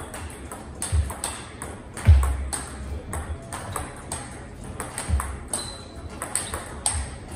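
Table tennis ball clicking off bats and table in a quick training rally, several sharp hits a second, with a few low thuds among them.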